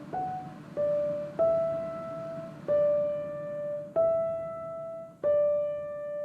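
Background music: a slow piano melody of single notes, each struck and left to ring, about one a second.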